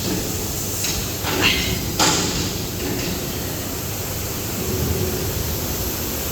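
Machinery running with a steady low noise and three sharp knocks in the first two seconds, typical of a paper roll cutting machine at work.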